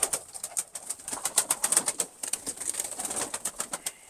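Domestic tumbler pigeons flapping their wings in a loft, a rapid, irregular clatter of wingbeats as the birds are disturbed by a handler reaching in to catch one.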